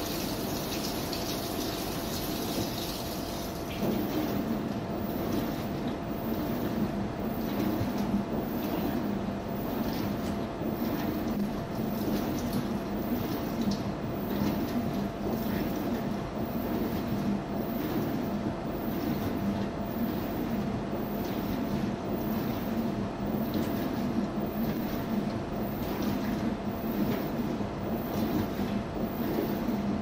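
Washing machine running: water rushing in at first, stopping about four seconds in, then a lower, steady mechanical rumble with a faint hum as the drum turns the wash load.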